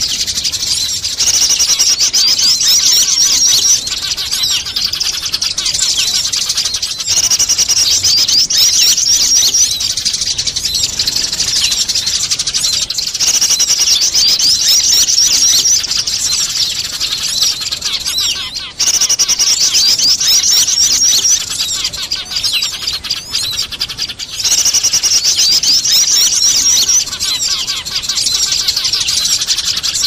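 Bird-lure recording of many small birds chirping together, mixed with the chattering of fighting Eurasian tree sparrows. It runs densely and loudly, swelling into bursts of fast, high chattering two to three seconds long that come back about every six seconds.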